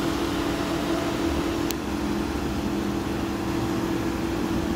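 Steady mechanical hum with a constant low tone, and a light click a little under two seconds in.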